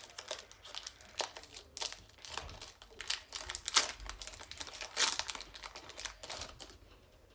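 Foil wrapper of a Pokémon card booster pack crinkling and crackling in the hands as the pack is opened, with many irregular sharp crackles that die away near the end.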